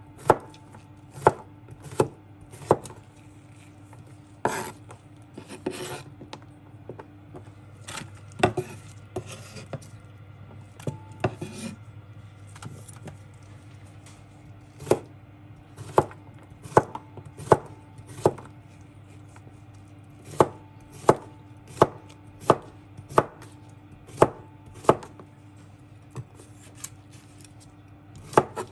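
Chef's knife slicing a cucumber on a wooden cutting board: each cut ends in a sharp knock of the blade on the board, about one to two cuts a second. In the middle stretch the knocks thin out and there is some scraping.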